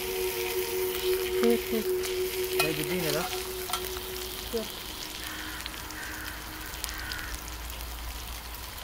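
Half chicken sizzling in hot oil in a cast-iron skillet over a wood fire, with short clicks from metal tongs against the pan as the chicken is moved.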